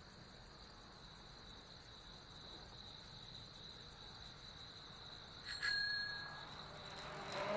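Crickets chirping in a faint, steady, high trill. About five and a half seconds in, a brief clear tone rings over them for about a second.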